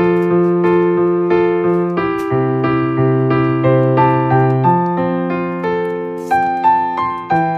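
Background piano music: a gentle melody over sustained chords, with a note struck every third of a second or so.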